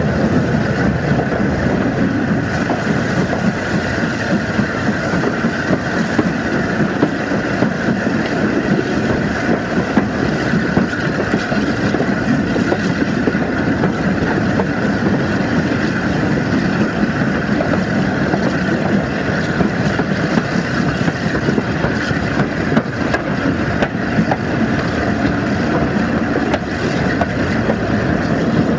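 Steam locomotive running tender-first, heard from its footplate: a steady running din of the engine and its wheels on the rails, with wind on the microphone.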